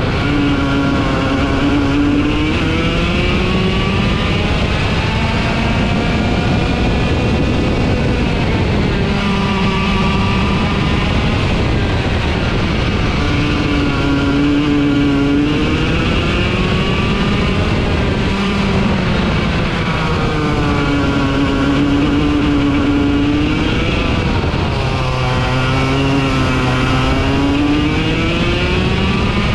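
Racing kart engine heard from the driver's seat, revving up along the straights and dropping back for the corners, its pitch rising and falling several times over the lap, with wind and tyre noise underneath.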